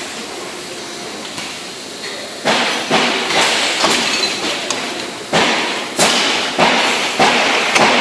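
Stangherlini CNC tube bending machine at work: a quieter steady stretch, then from about two and a half seconds in a run of sharp knocks with short ringing tails, roughly two a second.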